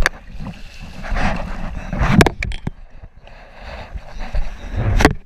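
River water rushing and splashing around a kayak, rising and falling in swells, with a few sharp knocks and wind buffeting the microphone.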